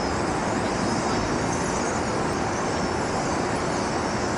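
Steady dense rushing noise with faint high chirps and whistles over it, from a large flock of brown-headed cowbirds.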